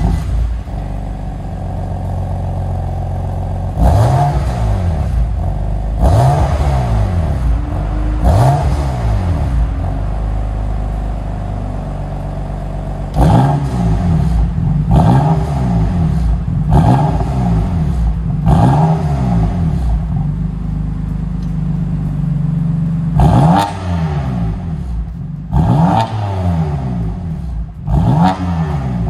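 BMW M3 30 Jahre Edition's 3.0-litre twin-turbo straight-six, free of a petrol particulate filter, idling through its quad exhaust and blipped about ten times. Each blip is a short rev that rises and falls straight back to idle, in groups with brief pauses between.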